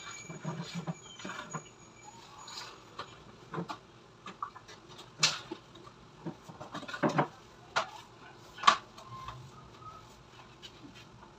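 Thin PVC wall panel being handled and pressed into place by hand: scattered light knocks, taps and plastic rattles, with a few sharper knocks in the second half, the loudest near the end.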